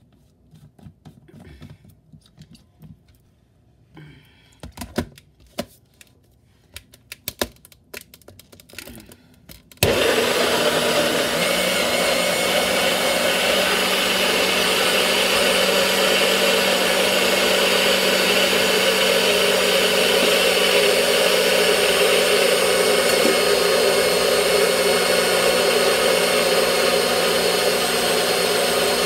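Clicks and knocks as a personal bullet-style blender's cup is set onto its motor base. About ten seconds in, the motor starts abruptly and runs steadily, blending nopal cactus, apple and pineapple with water into juice.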